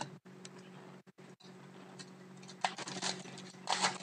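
Crinkling and rustling of a foil trading-card pack being handled and opened by hand, starting about two and a half seconds in and getting louder, over a faint steady low hum.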